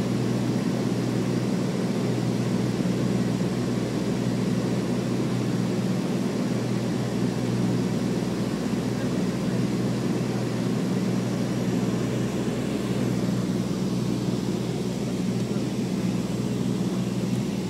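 Propeller airliner's engines and propellers heard from inside the cabin on descent: a steady drone of several low hums over an even rush of airflow.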